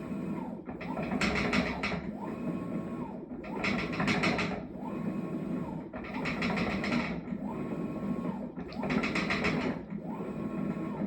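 Maytag washing machine running through its cycle with a loud clanking rattle about every three seconds, four times, each followed by a motor whine that rises, holds and falls away. This is the clanking fault that repeated repair attempts have not cured.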